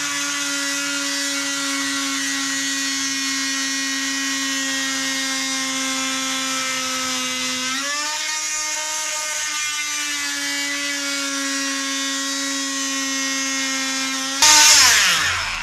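Handheld rotary tool running with a steady whine as its bit cuts a scarf into the wooden hull planking; the pitch steps up a little about eight seconds in. Near the end a loud burst, then the whine falls away as the tool spins down.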